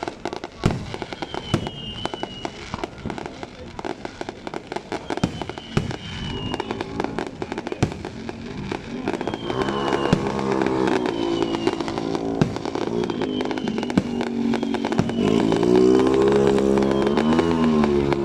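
Fireworks going off, with many sharp bangs and crackles, and short falling whistles every second or two. About halfway in, loud music with a wavering pitched tone joins in and grows loudest near the end.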